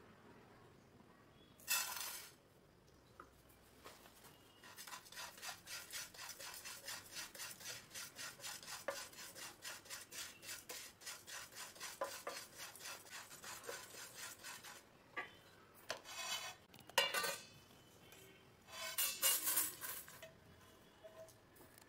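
A wooden spatula stirring and scraping red poha (flattened rice) flakes around a dry pan as they roast, in quick, even strokes. Near the end come a few louder rushes as the roasted flakes are tipped and scraped out onto a steel plate.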